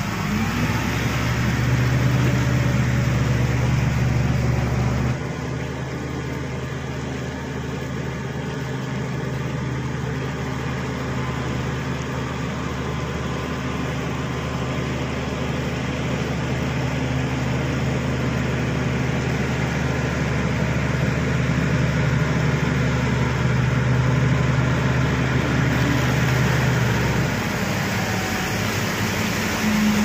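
Shantui SD16 crawler bulldozer's diesel engine running as the machine pushes soil: a steady low drone that drops abruptly in level about five seconds in and shifts again near the end.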